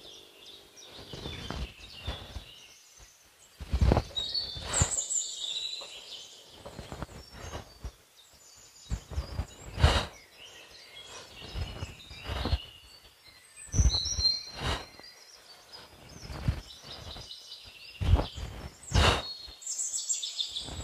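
Forest birds chirping and trilling in short high calls, with a few brief soft thumps and rustles scattered through, the loudest around the middle and near the end.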